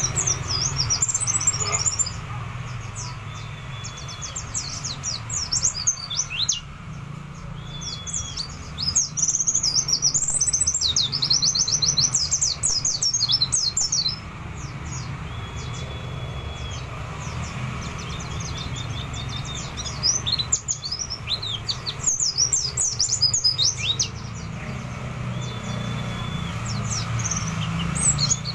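Caged white-eye (pleci) singing: fast, very high twittering trills and chirps in bursts, busiest around the middle, with a few short level whistles. A steady low hum runs underneath.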